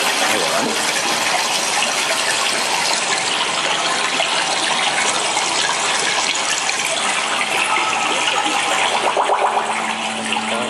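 A loud, steady rush of water, like water gushing or pouring. A low steady hum comes in near the end.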